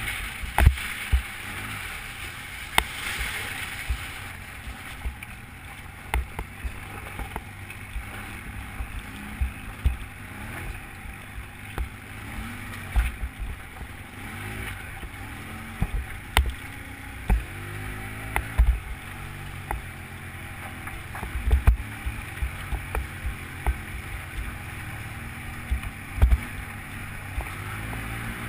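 Polaris Sportsman ATV engine running while riding, its pitch rising and falling with the throttle. Frequent short thumps and knocks are heard throughout as the machine rides over rough ground.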